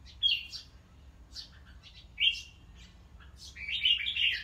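Red-whiskered bulbuls calling: four short chirping phrases about a second apart, the last one longer.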